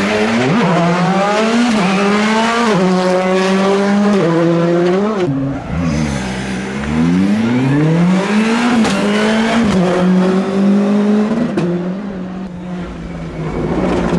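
Two rally cars pass one after the other at speed. The first engine climbs through the gears in quick steps, then drops away about five seconds in. The second comes in rising about seven seconds in, holds high, and fades near the end.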